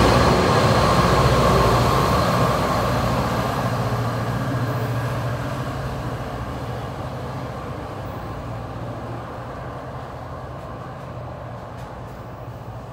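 New Jersey Transit PL42AC diesel locomotive, with its EMD 16-710 engine, pulling away after passing close by. Its low engine drone holds a steady pitch and fades evenly along with the wheel and rail noise as it recedes.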